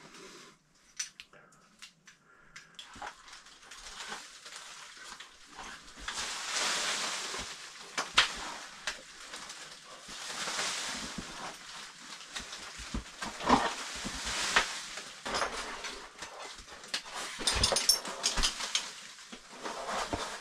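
A caver's heavy breathing close to the microphone, in swells of a couple of seconds, with rustling and scraping of clothing and gear on rock and a few sharp knocks and clicks of stones as he moves among loose rubble.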